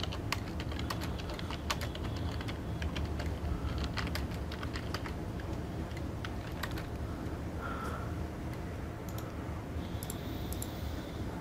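Typing on a computer keyboard: irregular runs of key clicks with short pauses, over a steady low hum.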